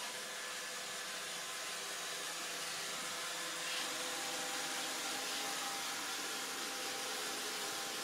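Roomba robot vacuum cleaner running: a steady whirring hiss with a few faint, steady motor tones underneath.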